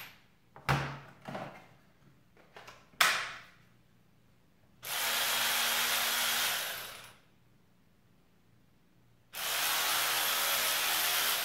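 XINGDI cordless 3/8-inch electric ratchet running free with the trigger squeezed: two steady whirring runs of about two and a half seconds each, the second starting about nine and a half seconds in. Before the runs, a few sharp clicks of the tool being handled, the sharpest about three seconds in.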